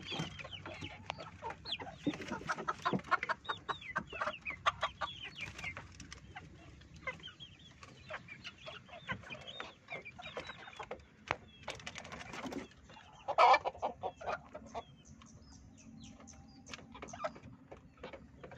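A flock of chickens clucking, short calls coming one after another, with one louder call about thirteen seconds in.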